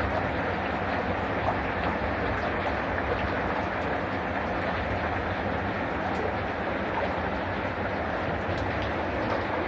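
Heavy rain falling steadily onto a garden fish pond's water surface, a dense, even rush of drops with no letup.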